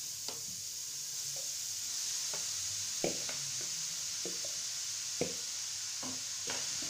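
Spatula scraping grated carrots out of a plastic bowl into a metal kadhai, with irregular sharp knocks of the spatula against bowl and pan, over a steady hiss.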